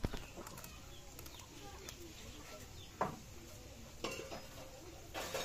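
Scales being scraped off a mrigal carp against an upright curved blade: short rasping strokes, a few louder ones about 3 and 4 seconds in and near the end.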